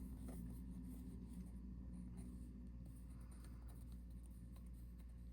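Faint, scattered small clicks and light rubbing from handling small objects on a work surface, over a low steady hum.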